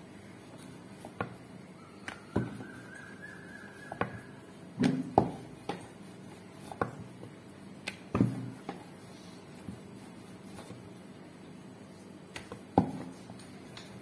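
Wooden rolling pin rolling out chapathi dough on a round wooden board, with a dozen or so irregular knocks and clacks as the pin and board bump and shift.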